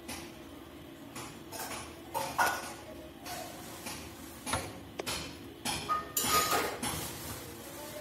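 Small tube cutter being clamped and worked on a thin copper drain pipe: a run of light metal clicks and scrapes, with a brief ringing ping about six seconds in.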